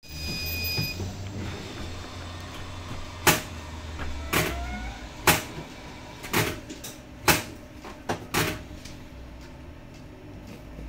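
Inside a Zhongtong LCK6113SHEVG city bus: a low steady hum with about eight sharp knocks or rattles at irregular intervals in the middle of the stretch.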